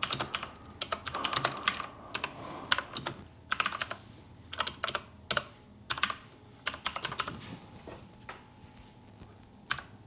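Typing on a Keychron tenkeyless mechanical keyboard fitted with swapped switches and keycaps: quick runs of key clacks broken by short pauses, thinning out near the end.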